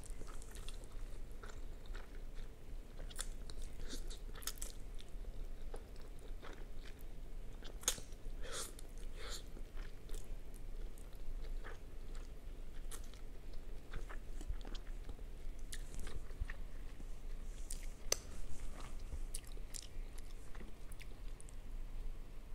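Close-up mouth sounds of a person eating instant noodles: slurping in mouthfuls of noodles and chewing, with scattered short wet smacks and clicks.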